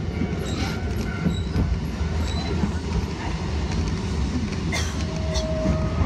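Keifuku Randen tram running along the track, heard from inside the car as a steady low rumble with a few faint clicks. A steady whine comes in about five seconds in.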